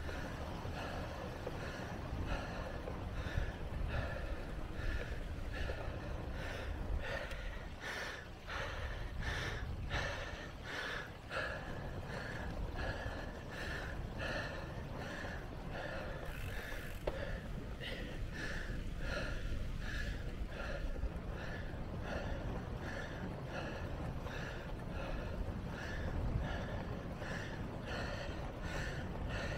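A cyclist breathing hard in a quick, steady rhythm, about one and a half breaths a second, from the effort of riding. Low wind rumble on the microphone runs underneath.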